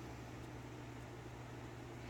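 Quiet room tone: a steady low hum under a faint even hiss, with no distinct handling clicks.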